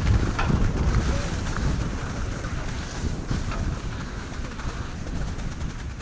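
Wind buffeting the microphone on an open chairlift, a low rumbling noise that gradually fades over a few seconds.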